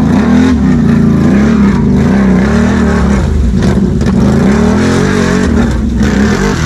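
ATV engine revving up and down over and over under throttle as the quad works in deep mud and bogs down.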